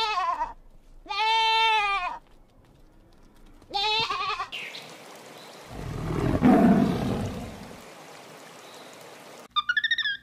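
Young goat bleating three times, wavering calls with the first already under way, followed by a noisy stretch that swells low about six to seven seconds in.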